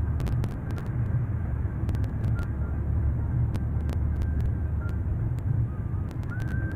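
Steady low rumble of a car, with scattered sharp clicks; a faint thin whine starts near the end.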